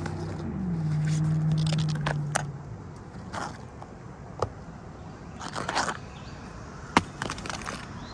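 A motor vehicle engine hums steadily, dips in pitch just under a second in and fades out by about three seconds. Scattered scrapes and sharp taps follow from work on an asphalt shingle roof, with a longer scrape near six seconds and a sharp knock about seven seconds in.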